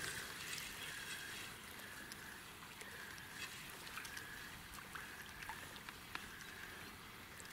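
Faint outdoor ambience at a still pond, with a soft whirring that comes and goes in short stretches and a few light ticks.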